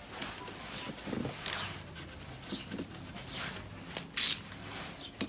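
Hands working on a dirt bike during assembly: scattered light clicks and rubbing of metal parts and tools, with one short, louder rush of noise about four seconds in.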